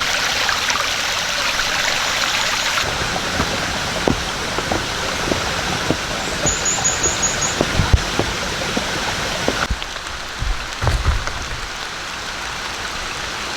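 Steady rain falling, with scattered drops landing as sharp taps. The texture shifts slightly about three seconds in and again near ten seconds.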